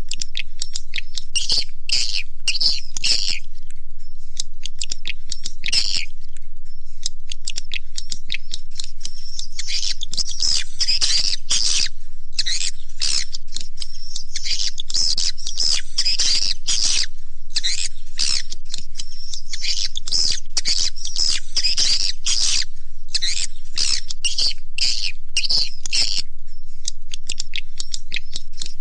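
Edible-nest swiftlet call recording: dense, rapid high twittering and chirping, looped as a lure call played at swiftlet houses to draw the birds in to roost and nest.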